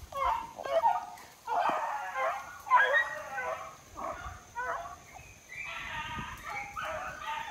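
Pack of young beagles baying and yelping in quick overlapping calls, the hounds giving tongue as they run a rabbit's trail through the brush.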